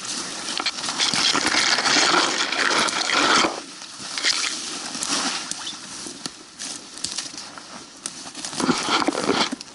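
Rustling and crackling of brush, twigs and dry leaf litter, the sound of footsteps pushing through forest undergrowth. It is dense and loud for the first three and a half seconds, then softer and scattered, with another loud burst near the end.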